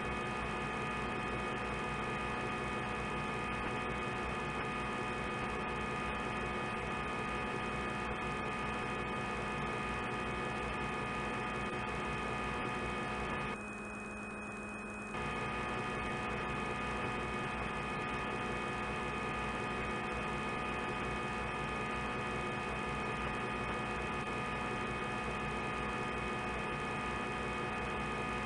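Steady humming run of a CNC lathe with its spindle and coolant on while the tool cuts a 2 mm turning pass. The hum is made of several fixed tones, and it drops and thins for about a second and a half halfway through before returning.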